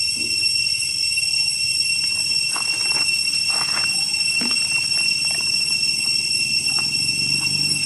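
A steady high-pitched whine at several fixed pitches holds throughout. A few short clicks and rustles come about a third to halfway through.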